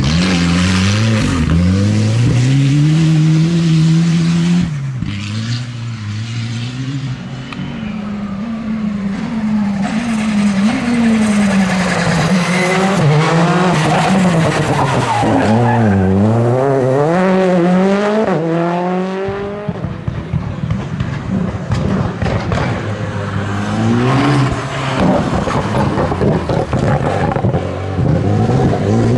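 Rally cars passing one after another on a special stage — a Volvo 240, a Citroën C3 rally car and an Alpine A110 — each engine revving hard and falling away through gear changes and lifts, with tyre noise over the loose surface.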